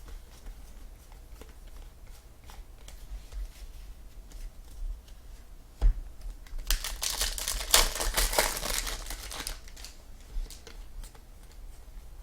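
A trading-card pack wrapper crinkling and tearing as packs are opened and cards handled. Scattered small clicks and a sharp snap come first, then a few seconds of dense crinkling just past the middle.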